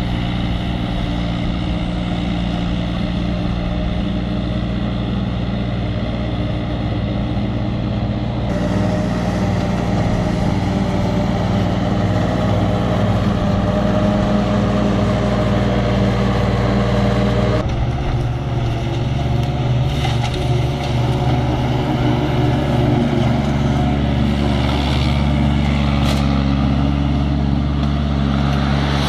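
MultiOne mini loader's engine running steadily under load as it drives a front-mounted mower attachment cutting grass. The sound changes abruptly twice, about eight seconds in and again about eighteen seconds in.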